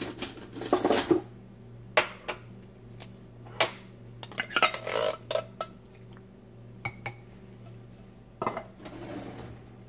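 Metal spoon clinking and scraping against a tin can and the stoneware slow-cooker crock while beans are scooped out, in scattered irregular knocks.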